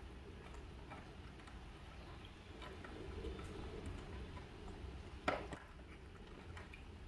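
Faint small clicks and taps of baby macaques handling fruit on a slatted wooden tea tray, with one sharp knock on the tray a little past five seconds in.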